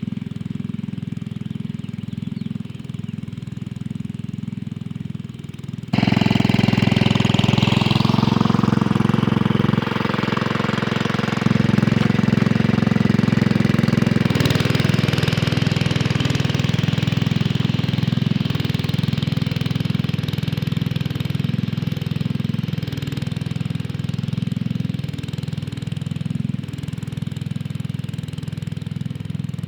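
1968 Sears Suburban 12 garden tractor engine running steadily under load as it pulls an 8-inch turning plow. About six seconds in it suddenly gets louder and brighter.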